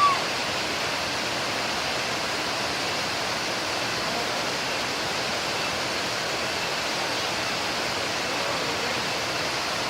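Waterfall's steady rushing water noise, with a brief high-pitched cry right at the start.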